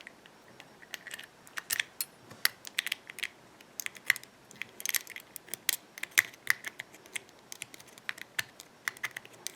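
Light metal clicks and taps, irregular and a few per second: steel tweezers working a small round part into a groove inside a padlock body.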